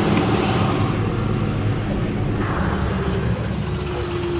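A vehicle engine running steadily under a constant rushing noise, easing off slightly toward the end.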